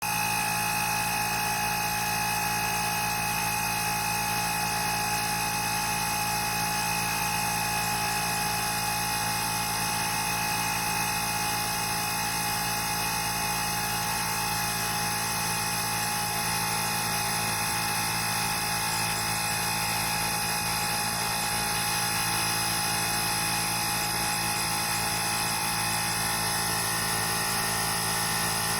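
Woowind AP2-P cordless electric tyre inflator switched on abruptly and running steadily, its small motor-driven air compressor making a constant mechanical drone with a steady whine.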